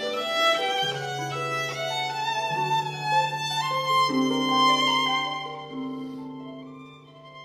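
Background music: a violin playing a melody of held notes over lower sustained notes.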